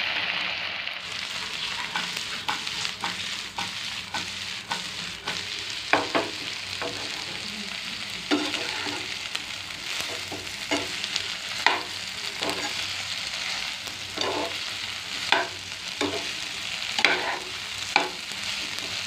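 Fried idli pieces sizzling in a frying pan with an onion, capsicum and sauce mixture while a spatula stirs and tosses them. Short scrapes and knocks of the spatula against the pan come at irregular intervals over the steady sizzle.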